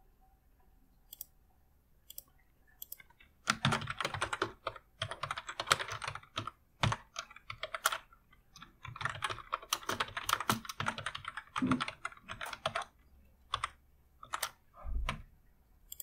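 Typing on a computer keyboard in two quick bursts of keystrokes, with a few separate clicks before and after.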